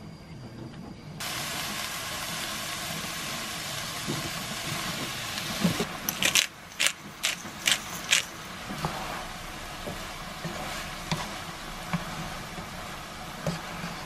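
Soybean sprouts and mushrooms sizzling in a hot wok, the hiss starting suddenly about a second in. Partway through comes a quick run of loud knocks and scrapes from a spatula stirring against the pan, with lighter taps after.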